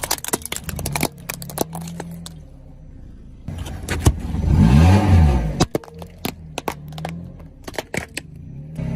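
A car engine running, revving up and back down about halfway through, with many sharp cracks and crunches scattered through as objects are crushed.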